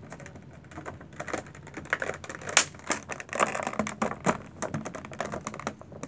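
Scissors working at plastic toy packaging: irregular clicks, crackles and rustling of the plastic, with one sharper snap about two and a half seconds in.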